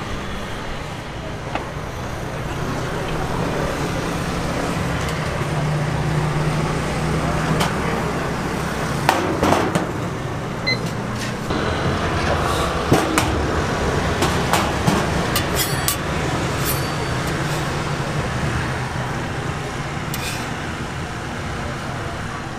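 Steady outdoor street-stall din with a low traffic hum, and a scatter of sharp metallic clicks and clinks from the steel griddle and its lid in the middle stretch.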